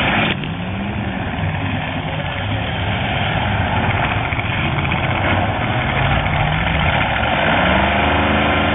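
Demolition derby cars' engines running and revving, the pitch climbing and falling several times over a steady noisy din.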